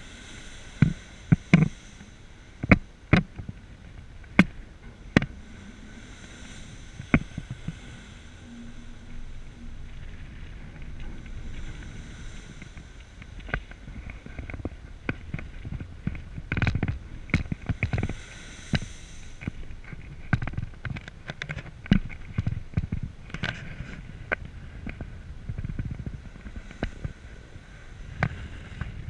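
Strong wind buffeting the camera microphone on a ferry's open deck: irregular sharp pops and thumps over a steady low rumble, clustered in bursts near the start and again in the middle.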